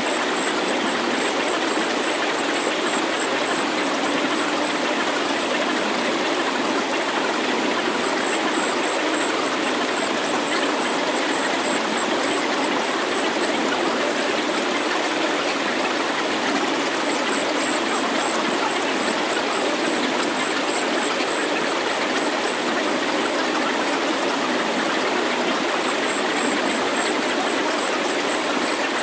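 Steady, even rushing noise like a water-like hiss, with the low end cut away and a faint high pulsing tone coming and going in short runs: the synthesized sound bed of a subliminal healing track.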